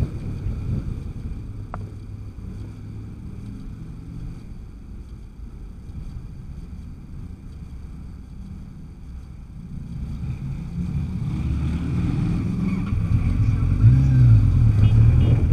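Kawasaki Z1000 inline-four motorcycle engine idling steadily at a stop, then getting louder in the last few seconds as the rider gives it throttle, with one short rev that rises and falls in pitch near the end.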